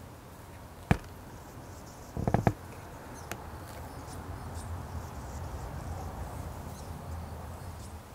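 Sharp clicks and knocks: one about a second in, a quick run of three or four about two seconds in, and a lighter one a moment later, over a low steady rumble with faint high ticks.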